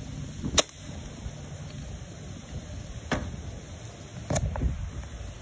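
Sharp clicks and knocks from a crossbow being handled in a metal tree stand: three distinct ones, the loudest about half a second in, the others about three and four seconds in, over a faint steady wind hiss.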